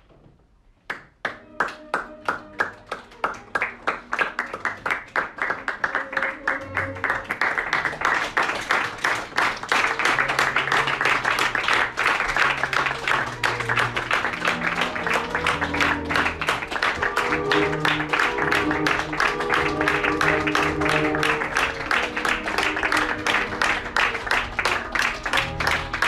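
Theatre audience applauding at a curtain call: separate claps start about a second in and swell into full, dense applause, with music playing under it from a few seconds in.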